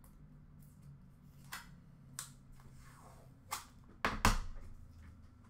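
Hands opening and handling trading-card packaging: about five sharp clicks and snaps, with a louder double snap about four seconds in.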